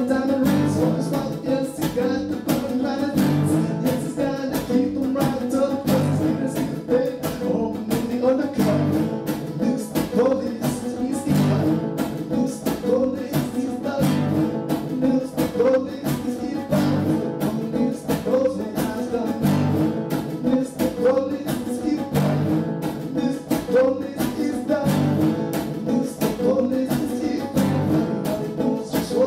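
Background music: a song with guitar over a steady beat.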